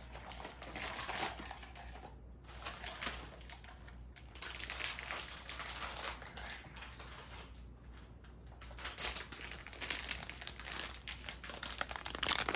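A blind-box toy's packaging being opened by hand: a foil bag and a thin cardboard box crinkling and rustling in irregular spells, with short pauses between them.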